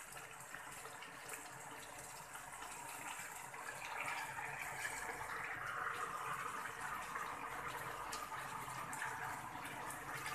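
Chicken pieces faintly sizzling and bubbling in thick sauce in a pan, getting a little louder a few seconds in, with light scrapes of a wooden spatula turning the pieces.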